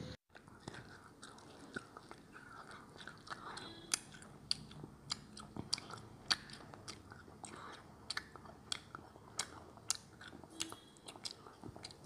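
Faint, sharp clicks and crackles, irregular, roughly one or two a second, over a quiet background hiss.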